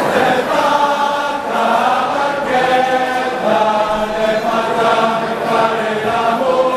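A group of voices singing a traditional Italian song together in harmony, with long held notes.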